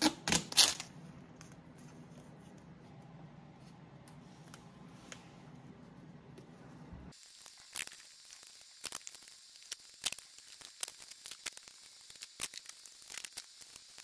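Duct tape being pulled, torn and pressed down to seal a furnace filter's frame to a box fan: quiet short rips and crackles, scattered thickly through the second half. Before that, a faint low steady hum with a few taps.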